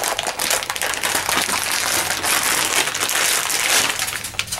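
Vacuum-sealed plastic bag of wood-fill PLA 3D-printer filament being opened by hand: a continuous crinkling, crackling rustle of plastic packaging.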